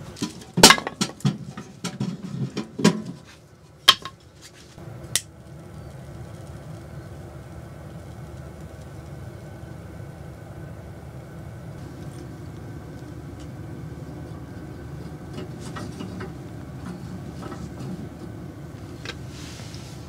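Split kindling sticks knocking and clattering against the steel firebox of a small wood-burning tent stove as they are stacked inside, a run of sharp knocks in the first five seconds. After that comes a steady low hum with a few faint clicks.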